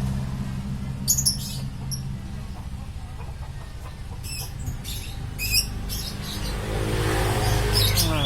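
A motor vehicle engine runs steadily, rising in pitch near the end as if accelerating. Small birds give short high chirps about a second in, in a cluster a few seconds later, and again near the end.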